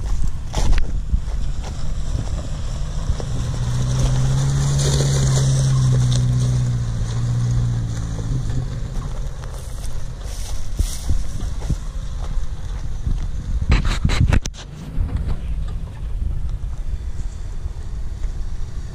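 Off-road SUV engine running as it drives past over rough ground, its hum loudest a few seconds in and then fading as it moves off. Heavy wind buffets the microphone throughout, with a few sharp knocks about three-quarters of the way through.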